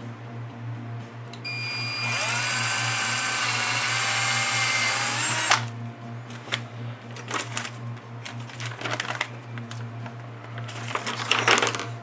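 Handheld power drill spinning up about one and a half seconds in and running for about four seconds as it bores a pressure-relief hole into the can of an oil-filled high-voltage capacitor, then stopping suddenly. Scattered clicks and clatter of pliers and the drill being handled follow.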